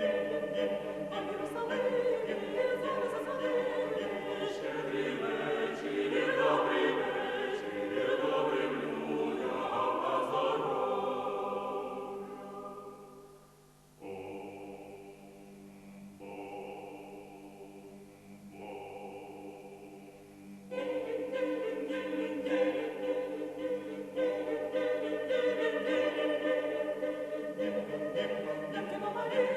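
Vocal ensemble singing a Ukrainian Christmas carol in several parts. The full sound dies away about twelve seconds in, gives way to a soft passage of three held chords with a high voice on top, and swells back to full strength near the end.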